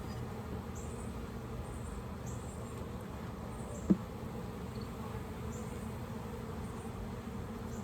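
Honeybees buzzing steadily around an opened hive, a hum of many bees at once. A single short click sounds about four seconds in.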